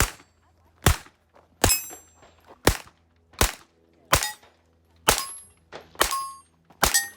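A .22 rimfire pistol firing about nine shots at a steady pace, roughly one a second, at steel plates. Several hits ring out with a short high clang.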